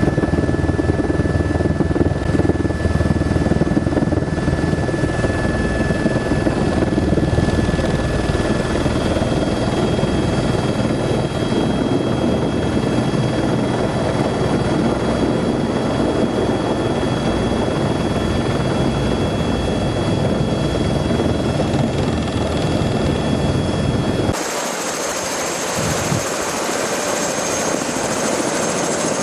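Helicopter in flight heard from inside the cabin: a steady, heavy rotor and engine drone with faint high whine. About 24 seconds in it cuts to a helicopter's turbine whine and rotor heard out on the helipad, with much less low rumble.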